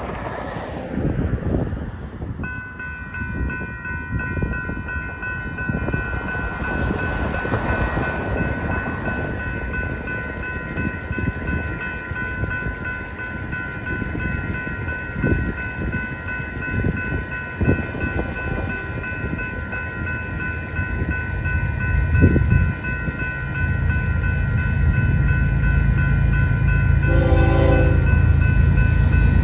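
Railroad crossing warning bell starts about two seconds in and rings steadily while the gates come down. A Union Pacific diesel freight train's rumble builds over the last several seconds, and its air horn blows near the end.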